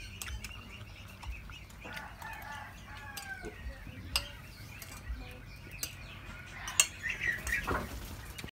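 Metal spoons clinking and scraping against porcelain plates and bowls during a meal, with one sharper clink late on. A chicken clucks a few times.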